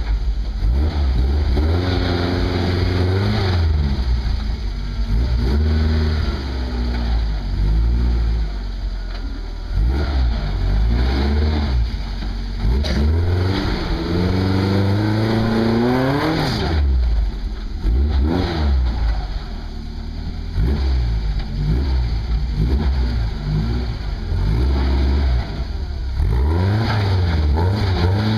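Lifted Toyota pickup's engine revving up and down repeatedly as the truck claws its way up a steep, muddy rut. There are several rising revs; the longest climbs for about three seconds before dropping off sharply just past the middle.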